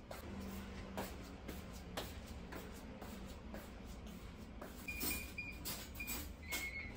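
Faint kitchen handling sounds: scattered light clicks and knocks of things being moved about on a counter. About five seconds in come several short high-pitched tones.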